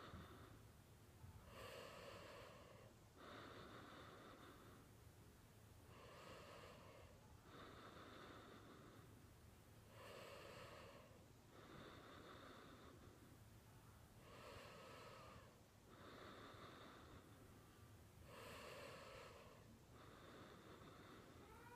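A person snoring steadily and faintly, with two breath sounds to each breath in a slow regular rhythm of about one breath every four seconds.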